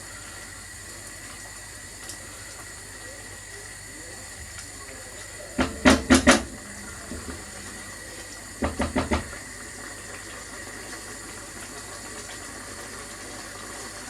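Curry sauce simmering in a pan with a steady low hiss, broken by two quick runs of about four sharp knocks each, about six and nine seconds in, of a utensil against the pan.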